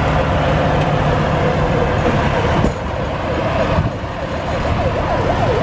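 Heavy truck engine running as a prime mover hauls a low-bed trailer loaded with a metro rail coach, a steady low rumble. From about the middle on, a tone wavers quickly up and down over it.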